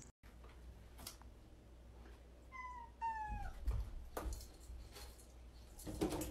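Domestic cat giving two short meows about half a second apart, each sliding down in pitch, with a few faint knocks around them.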